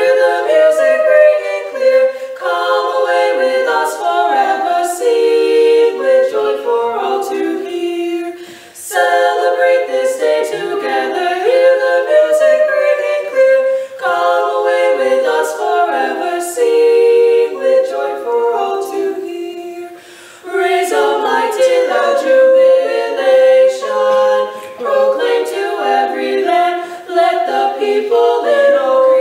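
Women's vocal trio singing a cappella, three voices in harmony, with two short breaks for breath between phrases, about nine and twenty seconds in.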